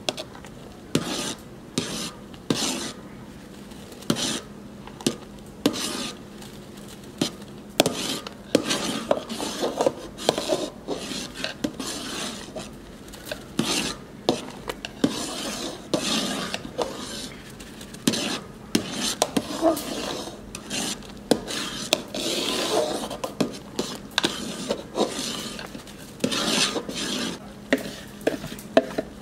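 A long metal spoon stirring and scraping against a large aluminium pot, with irregular knocks on the pot's sides, as roasted semolina is stirred into boiling strawberry syrup.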